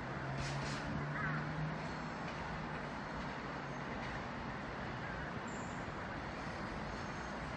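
A Seoul Metro electric train moving slowly over the junction tracks, with a steady rushing noise and a low hum that rises slightly in pitch over the first two seconds. A crow caws twice about half a second in.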